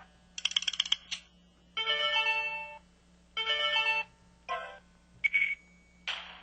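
A string of short electronic alert tones and jingles from the MS600's small speaker, played one after another as its effect-sound presets are previewed. Each clip lasts a second or less, with short gaps between them.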